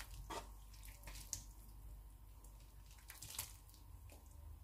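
A spoon stirring a pan of soup: faint sloshing of the broth with a few light clicks of the spoon against the pan, over a faint steady hum.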